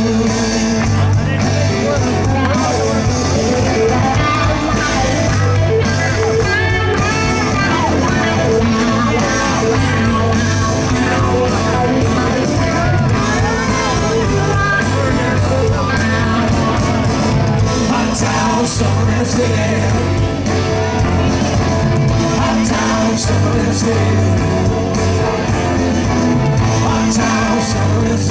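Live rock band playing loudly with electric guitar, with singing at times.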